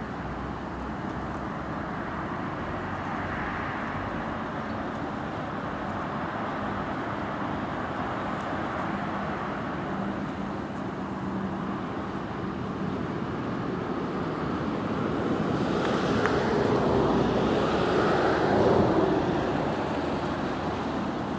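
Steady hum of road traffic. A louder vehicle passes about three quarters of the way through, swelling and then fading.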